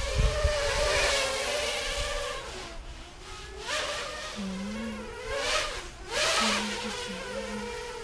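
ZMR 250 racing quadcopter's brushless motors and propellers whining overhead, the pitch rising and falling with the throttle. There are sharp bursts of throttle about halfway through and twice more near the three-quarter mark, as the quad flips and rolls.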